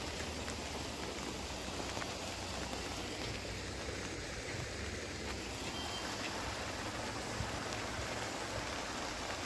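Steady hiss of rain falling outdoors, with a faint low rumble underneath.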